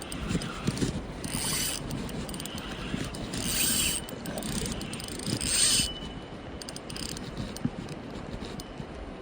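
Fishing reel's ratcheting mechanism clicking in three short bursts while a coho salmon is played on rod and line.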